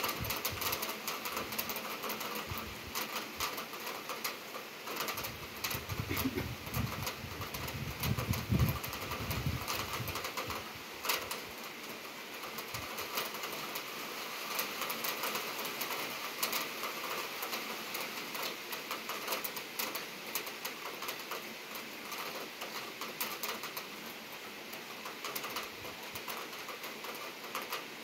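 Heavy rain shower falling steadily, a dense patter of drops ticking close by. A low rumble comes in about five seconds in and lasts a few seconds.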